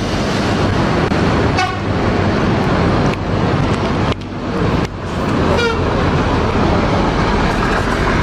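An intercity coach on the move, its engine and road noise steady, with its horn sounding twice as a short falling run of notes, about a second and a half in and again about five and a half seconds in.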